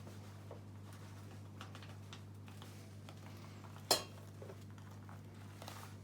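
A mug of flour being added to a mixing bowl: faint light taps and scrapes over a steady low hum, with one sharp knock of crockery on the bowl about four seconds in.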